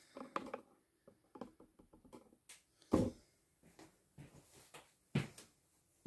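A person moving about a small room: scattered footsteps and soft knocks and rustles, with the loudest thump about three seconds in and another just after five seconds.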